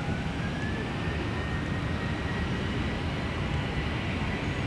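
Boeing 737-300's CFM56 jet engines on the landing roll: a steady low rumble with a thin whine that rises in pitch about half a second in and then holds.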